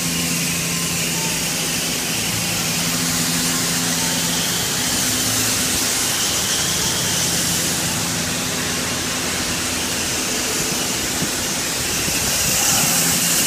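Spray wand at a truck wash laying foaming truck-wash soap onto a trailer's side: a steady hiss of spray. Under it runs a low machine hum that drops out briefly now and then.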